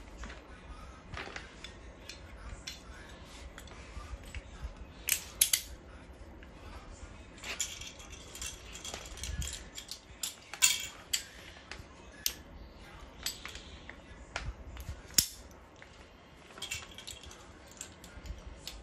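Parts of a steel dual monitor stand being handled and fitted together: scattered clicks and clinks, with a few sharper knocks.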